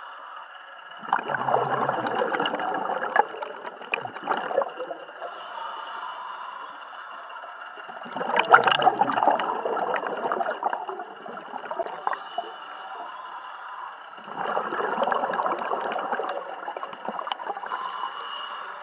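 Scuba diver breathing through a regulator underwater: three long gurgling bursts of exhaled bubbles, about six seconds apart, with a quieter hiss and a faint steady high tone between them.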